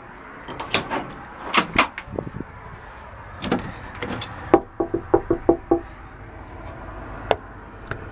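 Knocking and banging on a locked house door: a few scattered thumps, then a quick run of about six knocks in the middle, and one last knock near the end.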